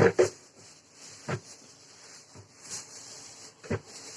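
Packaging being handled during an unboxing: two sharp knocks at the start, single knocks about a second in and near the end, and light rubbing between.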